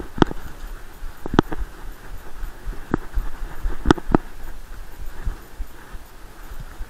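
Muffled body-mounted action camera noise from a running Groenendael Belgian Shepherd: rhythmic low thumps with its strides and a rustle of dry leaf litter, with a handful of sharp clicks and knocks of the mount in the first four seconds.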